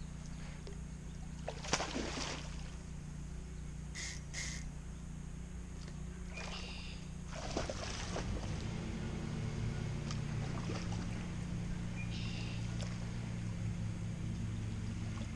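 Steady low rush of water pouring over a dam, growing a little louder about halfway through. A few short, sharp sounds break through it, about two, four and seven seconds in.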